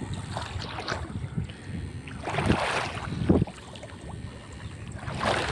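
Water sloshing and splashing in uneven bursts, the biggest about two to three seconds in, with a low rumble of wind on the microphone.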